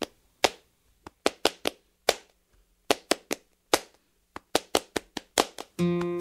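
Hand claps in a syncopated rhythm, sharp and dry, opening a song. Near the end a plucked string instrument comes in, playing sustained chords over the claps.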